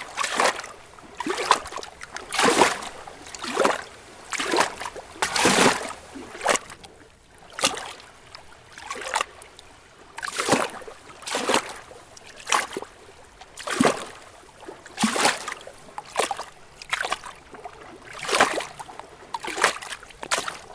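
Small lake waves lapping and slapping gently against rocks, one brief splash about every second at an uneven pace, with softer water washing between them.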